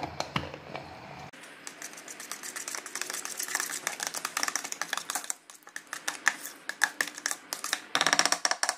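A plastic lid clicks onto a plastic jug, then a utensil taps and scrapes against a plastic bowl while stirring sauce: a fast run of light clicks that is densest near the end.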